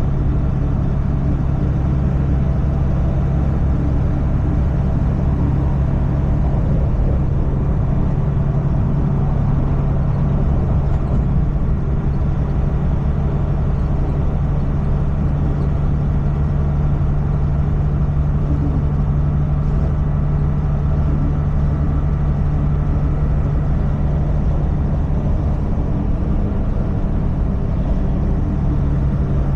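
Semi truck's diesel engine running steadily with road noise, an even low drone that holds the same pitch and loudness throughout.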